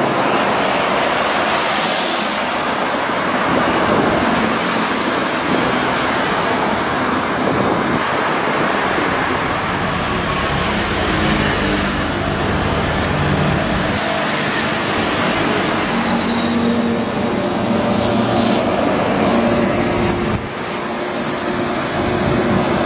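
Road traffic passing close by: steady tyre and engine noise with wind on the microphone. From about halfway through, a heavy vehicle's low engine hum comes through, and the noise dips briefly near the end.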